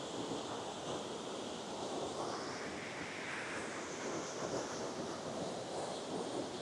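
Steady rush of river water flowing over rocks into the pool, an even hiss with no breaks.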